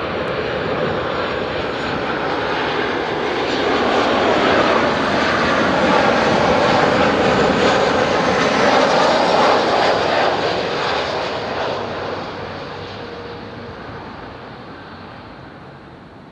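Boeing 737-700 airliner on final approach with its CFM56-7B turbofan engines running, passing low. The jet noise swells to its loudest about four to ten seconds in, then fades steadily as the aircraft moves away down toward the runway.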